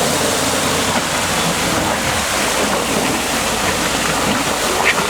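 An off-road car driving through mud and water: a steady splashing, churning noise from the wheels, with the engine running low underneath.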